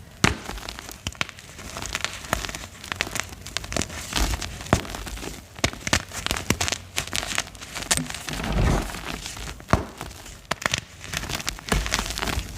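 Gym chalk being crushed and crumbled, with irregular dry crunching and crackling and a few heavier crunches.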